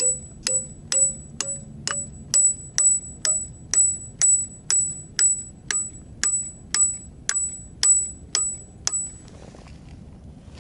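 A steel piton being hammered into a rock crack, struck about twice a second with a ringing metallic clang each time. The lower ring rises in pitch as the piton is driven home, the sign of a piton seating firmly. The hammering stops about nine seconds in.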